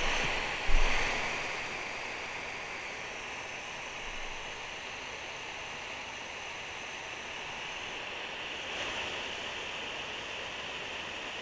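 A steady hiss, with two dull thumps within the first second.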